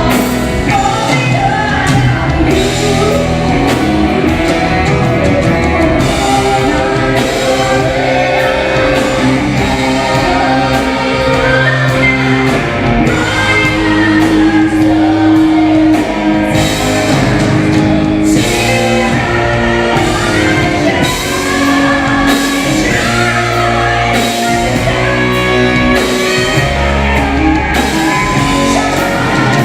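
Live pop-rock music: a woman singing over a full band with electric guitar, in a large hall.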